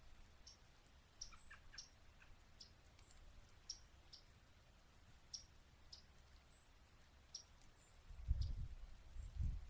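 Small songbirds giving short, sharp chip notes at irregular intervals, about one or two a second. Near the end there is a low rumble.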